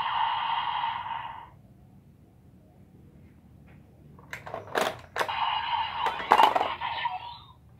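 A Kamen Rider Revice DX toy belt with the Jackal Vistamp plays an electronic sound effect through its small speaker that fades out in the first second and a half. A few seconds later come sharp plastic clicks as the stamp is pressed down on the buckle. Another electronic sound effect from the toy follows, ending in a short pitch glide.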